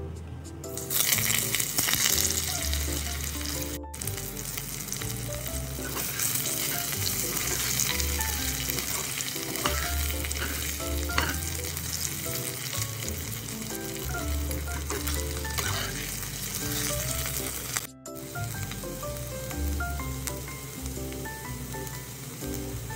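Cubed potatoes and cumin seeds sizzling as they fry in oil in an aluminium pan, stirred with a spatula. The sizzle sets in about a second in.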